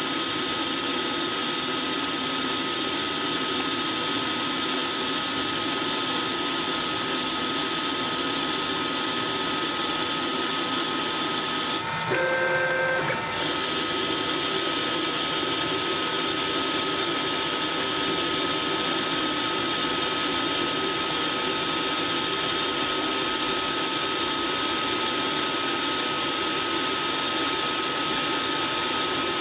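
CNC-converted Myford ML7 lathe running under program control while turning a small ball handle: a steady machine noise with a constant whine. About twelve seconds in the tone changes briefly for about a second, with several clear pitches, then the steady running resumes.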